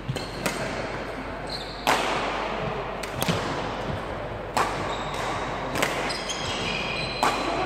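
Badminton rally: sharp racket-on-shuttlecock hits about every one to one and a half seconds, with shoe squeaks on the wooden court floor and the echo of a large sports hall.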